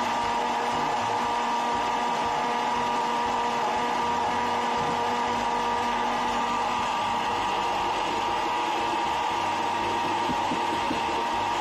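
Electric blender motor running steadily at full speed, blending an iced drink in its jar, with a steady whine over a whirring rush.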